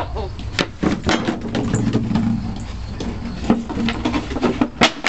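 A Bernese mountain dog knocking a plastic bucket about on a wooden deck while trying to get a ball out of it: irregular knocks and scrapes, the loudest a little before the end.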